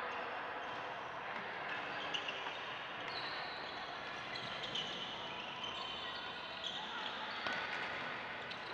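Badminton being played on several courts: a few sharp racket-on-shuttlecock hits and short shoe squeaks over a steady din of players' voices.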